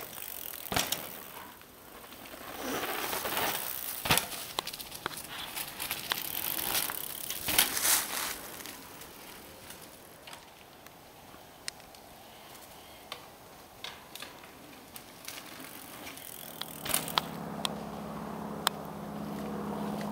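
Mountain bike tyres rolling and skidding over dirt and dry leaves, with sharp knocks and clicks from the bikes and landings. Near the end a steady low hum joins in.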